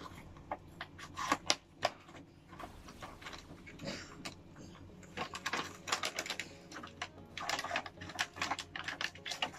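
Cardboard product box being opened by hand: irregular clicks, taps and scuffs as the packaging is pulled apart and its inner tray slid out.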